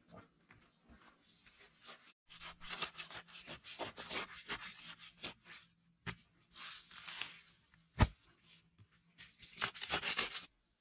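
A hoe chopping into grassy soil and tearing up turf, with roots ripping and dirt scraping in quick clusters of strokes, and one sharp, louder strike late on.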